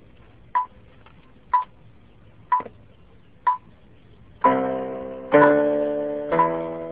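A metronome ticking once a second at tempo 60. About four and a half seconds in, an electronic keyboard joins on the beat with three notes played with both hands, each held about a second, while the ticks go on.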